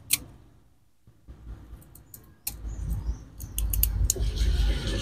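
Scattered clicks and crinkles of plastic tape being handled and wrapped around a seedling and its wooden stake. From about halfway a low rumble builds up, a vehicle drawing closer.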